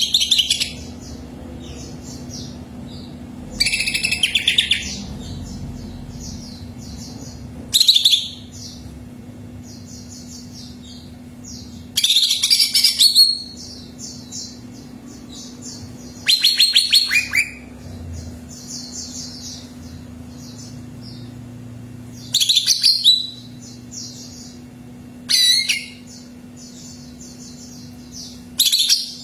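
Green leafbird (cucak ijo) singing in short, loud bursts of rapid high warbling and chirping, repeated about every four seconds, with softer chirps between the bursts. A steady low hum runs underneath.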